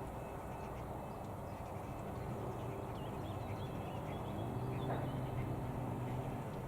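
Strong wind rushing across the microphone as a steady low roar. A few short high bird chirps come through about two to five seconds in, and a low steady drone sounds from about four and a half seconds in.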